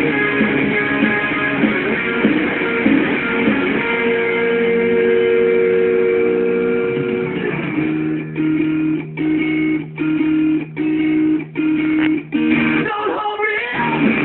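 Guitar music: held chords at first, then from about eight seconds in short, chopped chords with brief gaps between them, and a short break near the end.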